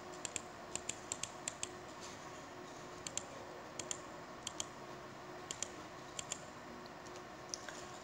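About twenty light, sharp clicks in irregular small clusters, like keys or buttons being tapped, over a faint steady hum of room tone.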